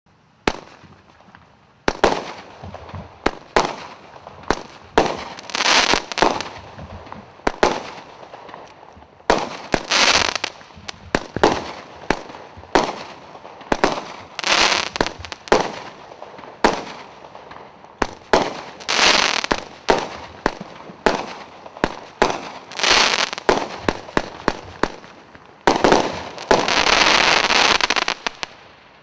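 A 20-shot consumer fireworks cake firing shot after shot, roughly one every second or so. Each shot is a sharp launch pop followed by a hissing, crackling burst. Near the end comes a longer crackling spell of about two seconds as the last shells burst into crackling stars.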